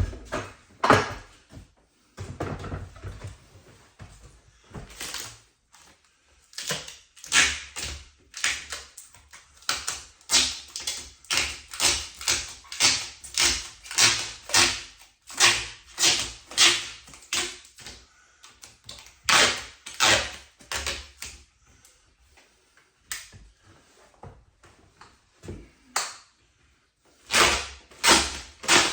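Protective plastic film being ripped off IKEA cabinet doors in a series of short tearing pulls, about one or two a second, with a few short pauses between runs.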